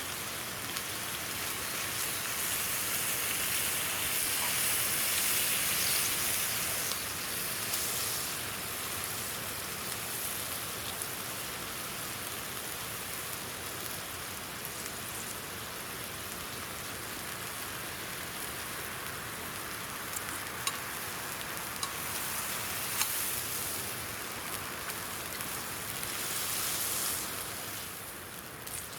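Steady hiss of beef sizzling over a campfire against the rush of a river, with a few small crackles in the second half.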